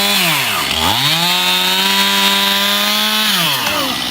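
Chainsaw engine running at high revs, dropping briefly to idle just under a second in, revving straight back up and holding steady, then falling back to idle near the end.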